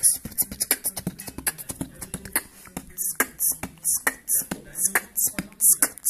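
Fischer's lovebird chattering: a quick, irregular run of short, shrill chirps and clicks, several a second.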